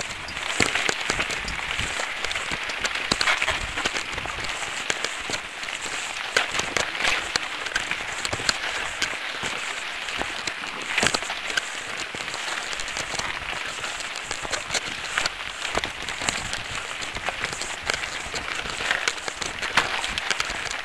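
Mountain bike tyres crunching over a loose gravel dirt road, with a steady rush of noise and many small clicks and knocks from stones and the rattling bike.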